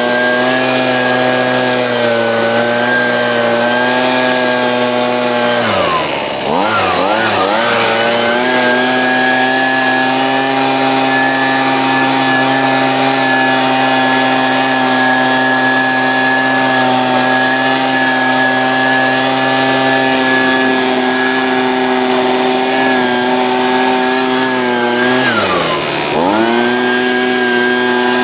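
Gas-powered leaf blower's small two-stroke engine running at full throttle with a steady high engine note, dipping briefly as the throttle is eased off and opened back up about six seconds in and again near the end.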